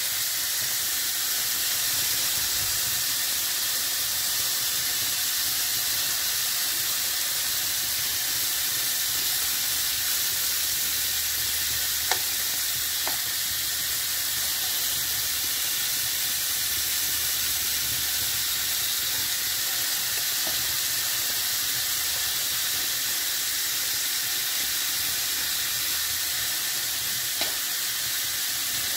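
Diced chicken sizzling steadily as it browns in a non-stick frying pan over medium-low heat, with a few faint pops of spitting fat.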